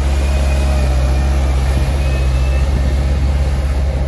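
Diesel engine of a JCB compact wheel loader running steadily as it drives off past.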